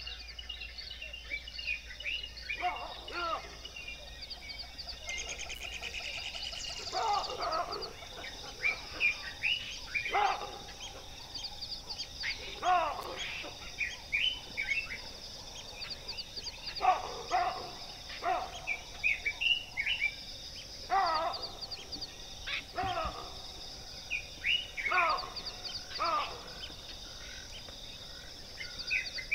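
Wild birds calling again and again: short, sweeping calls every second or two, over a steady high hiss.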